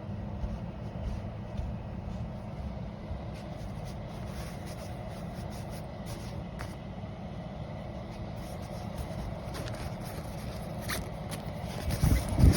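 Optimus Technology portable clothes dryer running: a steady fan and blower hum, with light rustling and scraping handling noises and a louder bump near the end.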